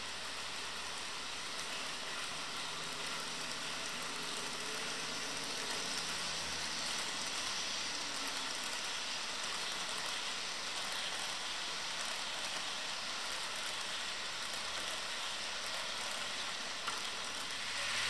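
An HO scale model freight train, a Union Pacific reefer train led by an SD70ACe, running past on the track: a steady rolling noise from the wheels, with a low hum that fades out about halfway through.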